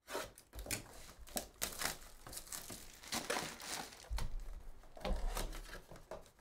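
Plastic shrink wrap crackling and tearing as it is stripped off a trading-card box, and the cardboard box being opened, in a dense, irregular run of crinkles. A few dull handling bumps come about four to five seconds in.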